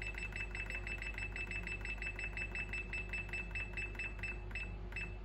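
Thermomix food processor beeping rapidly as its timer dial is turned up to 20 minutes, one short high beep for each step, stopping near the end.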